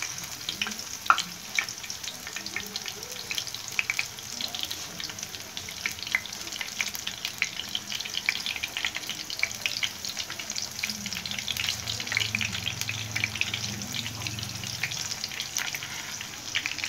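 Spinach leaves in gram-flour batter deep-frying in hot oil in a pan: a steady sizzle thick with fine crackling pops.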